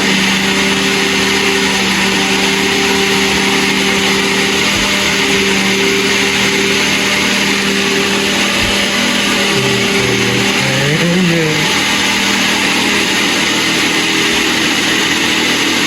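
Electric countertop blender running steadily, blending cake batter, with a constant motor hum. The hum wavers briefly in pitch about ten seconds in.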